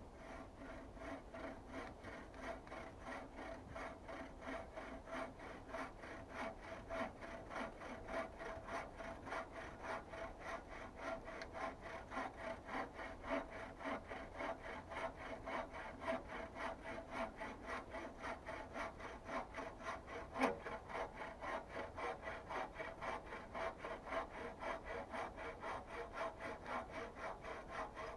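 Hand saw cutting through wood in steady back-and-forth strokes, about three a second, with one sharper click about two-thirds of the way through.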